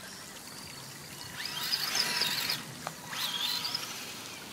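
Vaterra Twin Hammers RC buggy's electric motor and drivetrain whining in two bursts of throttle, each rising in pitch, about a second and a half in and again about three seconds in. A creek trickles steadily underneath.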